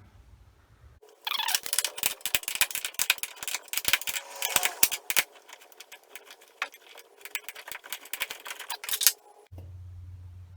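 Hand ratchet clicking in quick, irregular runs with metallic rattling, starting about a second in and stopping about a second before the end.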